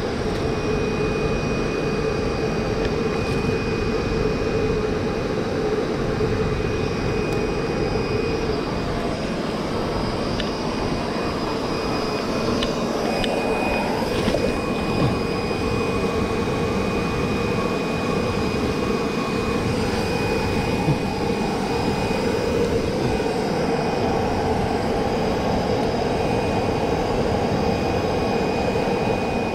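Steady machine drone, a constant hum with a rushing noise under it.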